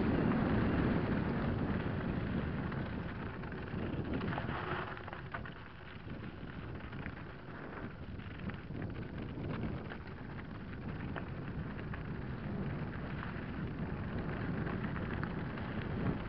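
Mountain bike rolling down a loose gravel track: wind buffeting the microphone, with the tyres crunching and rattling over stones. The noise eases off about five seconds in, then builds again.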